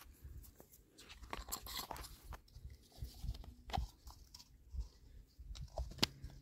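Faint, irregular clicks and crackly rustles of hands handling a small fishing bait and hook close to the microphone, with a few low bumps.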